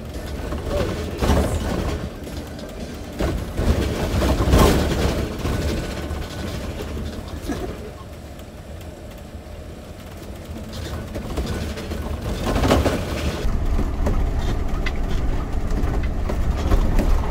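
Road noise inside the cab of a Winnebago Class A motorhome driving on rough, patched pavement: a steady low rumble with knocks and rattles as it rides over bumps, and the strongest jolts about four and thirteen seconds in.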